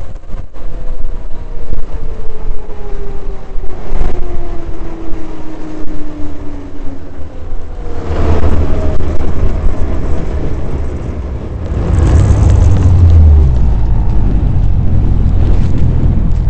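Ski-Doo 800 E-TEC two-stroke twin snowmobile engine coming off the throttle, its pitch falling steadily for several seconds as the sled coasts down, then running at low revs with a deep rumble as the sled slows to a stop, with wind noise on the microphone.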